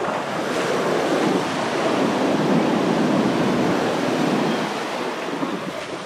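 Sea surf breaking and washing up the beach: a steady rush of water that swells over the first few seconds and eases near the end.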